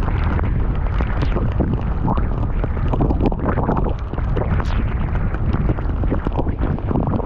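Loud, low wind buffeting on the microphone of a bicycle riding through a heavy rainstorm, mixed with rain and the spray of tyres on a waterlogged road.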